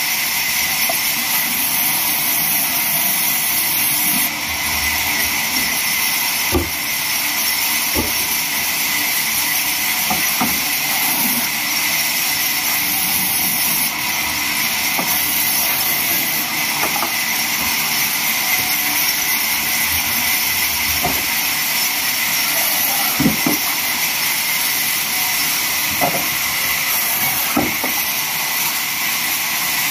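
Large vertical band saw running and cutting through log slabs, a loud steady hiss. A few short knocks come as the wood is shifted on the steel table.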